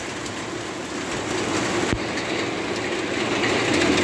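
Hail coming down hard: a dense, continuous clatter of many small hailstone hits over a rain-like hiss, growing a little louder near the end.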